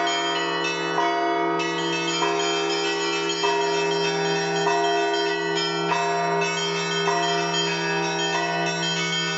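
Russian Orthodox church bells being rung. A deep bell hums steadily underneath, while higher bells are struck in an even pattern about every two-thirds of a second, each one ringing on.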